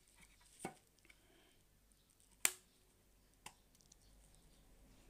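Three sharp clicks from handling a Sony ICF-306 portable radio as its carry handle is folded down and its telescopic antenna pulled out; the middle click is the loudest.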